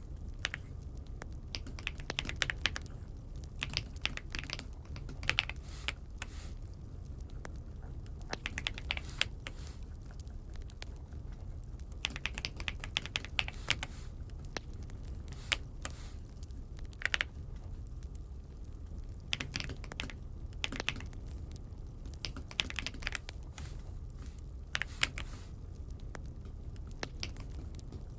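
Typing on an Aula F75 mechanical keyboard: irregular runs of key clicks with short pauses between them, over a low steady hum.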